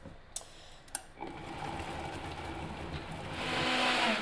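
Two light clicks, then a Vitamix high-speed blender's motor starting about a second in and running steadily through a thick load of tomatoes and sun-dried tomatoes. It grows louder near the end as the speed is turned up.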